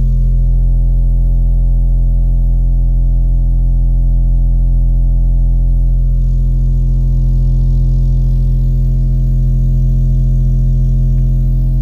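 Pyramid subwoofer, mounted inverted in a sealed home-audio sub box, playing a steady 43 Hz test tone: a loud, unbroken deep bass tone.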